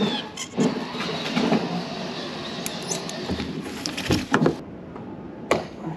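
Small stainless-steel hardware, bolts and washers, clinking and rattling as it is handled and fitted, with several sharp knocks, the loudest a little past the middle and once more near the end.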